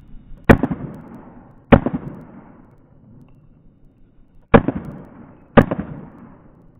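Four shots from a Wilson Combat CQB 1911 pistol in 9mm, fired in two pairs about a second apart with a pause of nearly three seconds between the pairs. Each shot trails off in an echo.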